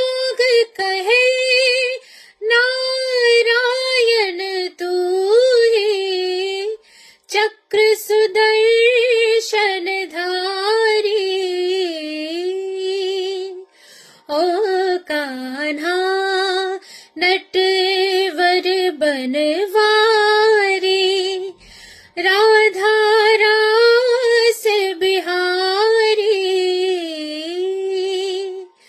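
A woman singing a Hindi devotional song to Krishna, her voice alone with no instruments. She sings in long phrases with short pauses between them.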